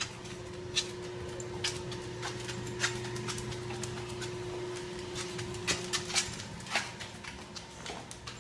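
A dog's claws clicking irregularly on a tile floor as it walks about, over a steady low hum that partly stops about six seconds in.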